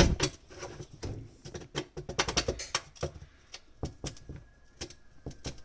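A string of light clicks and knocks from a dishwasher's filter parts being handled and set back in place. The clicks come close together at first and are sparser later.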